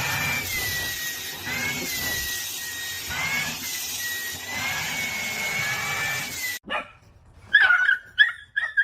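A dog whining in a long, high, wavering tone over a steady hiss. It breaks off suddenly, and near the end come a few short high yelps.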